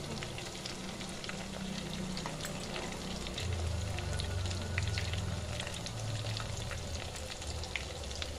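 Battered chicken pieces frying in hot oil in a pan: a steady sizzle with scattered crackles and pops. A low hum sits underneath and grows louder about three and a half seconds in.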